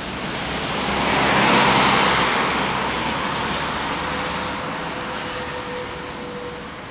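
A road vehicle passing by: a swell of tyre and engine noise that peaks about a second and a half in, then slowly fades.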